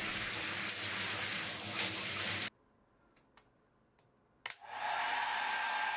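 A handheld shower spraying water steadily, cutting off about halfway through. After a short near-silence with a few faint clicks, a hair dryer switches on and runs steadily with a whine.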